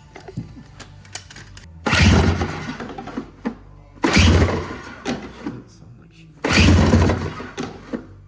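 Snowmobile engine firing in three short bursts about two seconds apart, each dying away within a second: the engine catching briefly as it is started.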